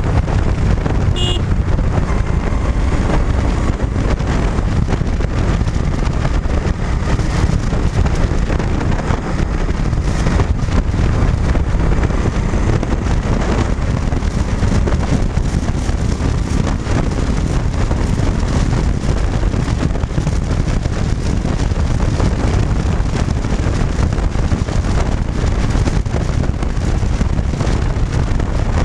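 Cruiser motorcycle riding steadily at road speed: wind rushing over the microphone, with the engine running underneath.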